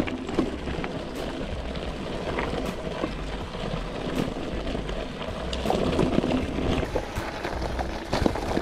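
Mountain bike rolling over a rough dirt trail: steady tyre noise on dirt and stones with frequent small rattles and knocks from the bike.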